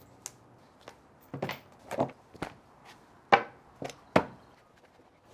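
Leather knife roll being unbuckled and unrolled on a wooden butcher-block table: a series of short knocks and slaps as the heavy leather and the knives inside flop onto the wood, about eight in five seconds.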